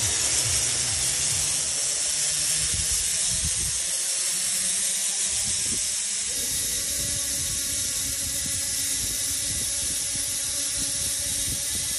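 Zipline trolley pulleys running along the steel cable with a steady hiss, while wind buffets the microphone in an uneven low rumble.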